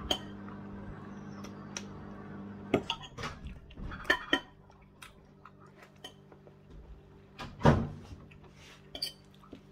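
Eating at the dinner table: chewing and a scatter of short clinks and knocks of dishes and cutlery against a plate, the loudest a little before the end, over a steady low hum.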